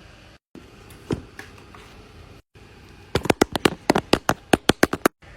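Bubbles of a silicone pop-it fidget toy being pressed: a single pop about a second in, then a quick run of about fifteen pops over two seconds near the end.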